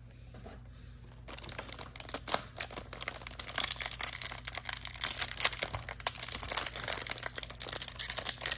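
Trading-card packaging being opened by hand: dense crinkling and tearing with many sharp crackles, starting about a second in.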